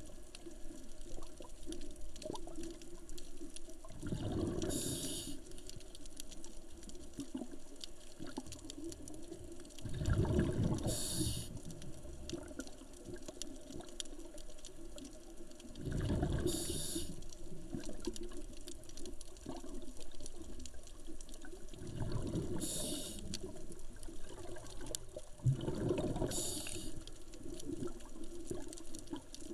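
Scuba diver breathing through a regulator underwater: a bubbling exhalation surge with a short hiss about every six seconds, five in all, over a steady low background.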